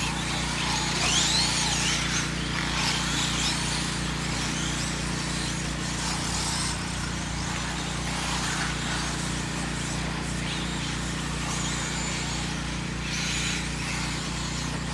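RC short-course trucks racing on a dirt track, their motors whining and sweeping up and down in pitch as they speed up and slow down, over a steady low hum.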